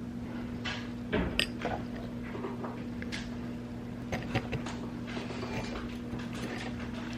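Kitchen clatter: scattered clinks and knocks of dishes and cutlery being handled, loudest about a second in, over a steady low hum.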